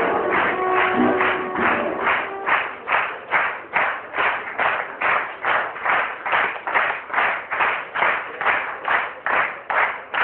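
Music: a short melody over a steady, hissy percussive beat. About two and a half seconds in the melody drops out, leaving the beat alone at about two and a half strikes a second.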